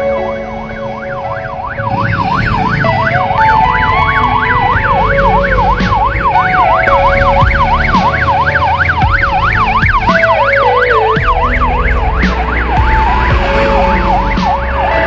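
Ambulance siren sounding a fast yelp, its pitch rising and falling several times a second; it starts about two seconds in and stops a few seconds before the end. Background music and vehicle engines run underneath.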